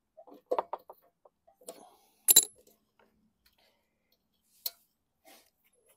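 Scattered small metallic clicks and clinks of hand tools and engine parts being handled, with one sharp metal clink a little over two seconds in as a T-handle socket wrench is set down on concrete.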